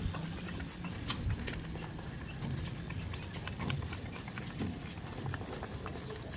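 Goats moving about, their hooves making irregular clicks and knocks.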